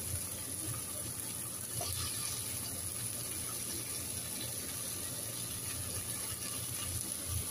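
Onion-and-tomato stew base with freshly added raw potato cubes sizzling in a frying pan, a steady hiss.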